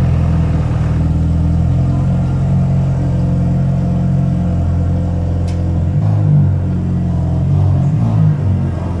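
Audi A4's engine running at a steady idle, its low note wavering and shifting briefly between about six and eight seconds in.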